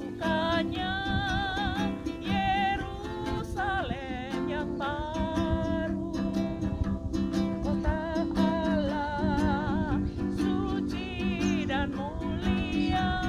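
A woman singing a slow melody with vibrato on the held notes, accompanied by a ukulele strummed in chords.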